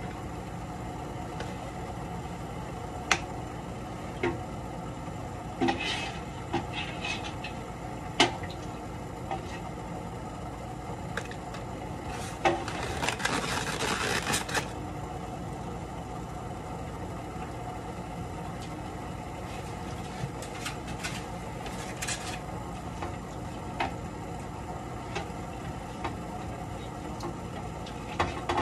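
Foam clamshell takeout containers handled and a lid pressed shut: scattered light clicks and knocks, with about two seconds of foam rubbing and creaking near the middle. A steady low hum underneath.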